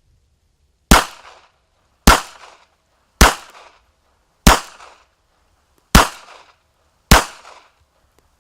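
Kel-Tec .32 ACP pocket pistol fired six times at a steady pace, about one shot every second and a quarter, each shot with a short echo. The magazine is emptied without a stoppage in a test of the little pistol's reliability.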